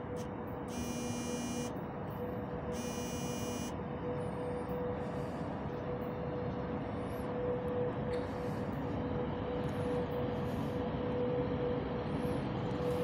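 A VL80T electric locomotive hauling a freight train slowly approaches, with a steady electrical hum over a rumble that grows gradually louder. Two short high-pitched beeps, each about a second long, sound about a second in and again about three seconds in.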